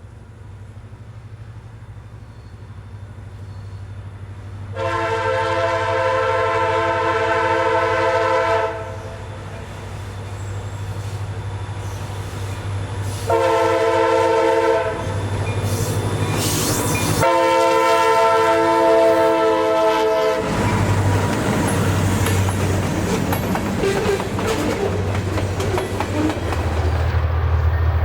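Nathan K5LA five-chime locomotive air horn sounding a long blast, a short blast, then another long blast as the train approaches. The locomotive then passes close by with its engine rumbling and its wheels clattering over the rail joints.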